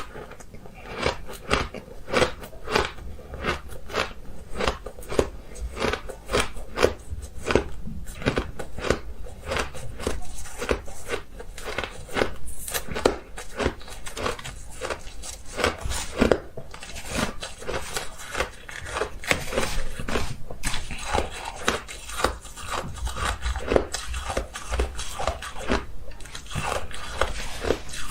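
Ice being bitten and chewed close to the microphone: a steady run of sharp, crackling crunches in quick succession.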